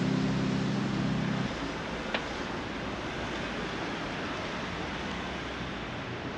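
Background music with held keyboard chords stops about a second and a half in, leaving a steady outdoor hiss of distant road traffic, with one faint click a little later.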